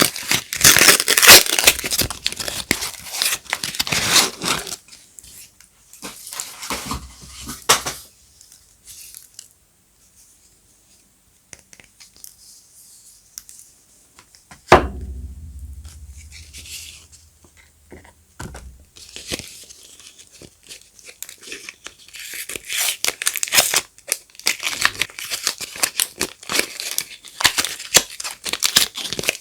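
Soap packaging being torn open and crinkled, in dense crackly bursts at the start and again near the end. In the quiet stretch between them there is a single sharp knock with a low thud, about halfway through.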